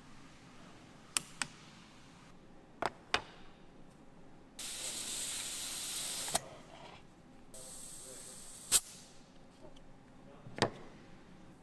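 Compressed air hissing in two bursts, the first about two seconds and the second about one, each cut off with a sharp click. Light clicks and knocks come before, between and after.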